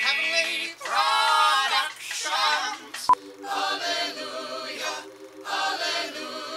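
Several voices singing together in harmony, with vibrato, in short phrases. About three seconds in there is a sharp click, after which long held low notes run under the sung phrases.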